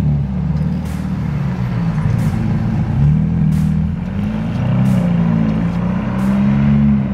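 Ferrari Roma's twin-turbo V8 exhaust as the car pulls away at low speed, its revs rising and falling several times.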